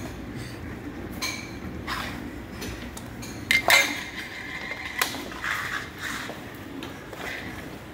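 Metal canning-jar rings and lids clinking and clattering on a hardwood floor as a baby handles them. There are several separate knocks; the loudest, about three and a half seconds in, rings briefly.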